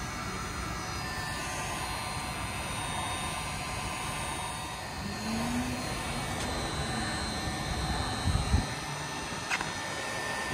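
Acmyslat electric heat gun running, its fan blowing a steady rush of hot air. A couple of low thumps come about eight seconds in.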